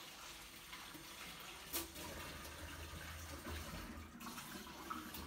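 Water running steadily, as from a kitchen tap into a sink, with a single sharp click about two seconds in.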